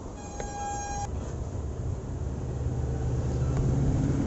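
A short pitched beep lasting about a second, then a motor vehicle's engine hum that grows louder as it passes.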